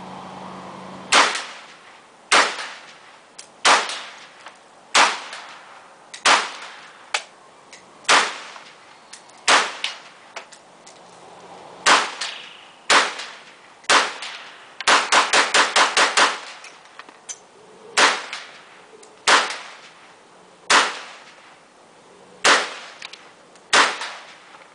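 Zastava M85 PAP AK-style pistol in 5.56 firing semi-automatic: steady single shots a little over a second apart, a quick string of about eight shots about midway through, then single shots again.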